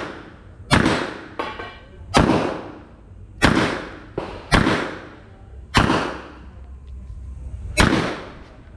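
Six pistol shots fired one at a time, a second or more apart, each with an echoing tail. A fainter sharp knock with a brief ring falls between the first two shots.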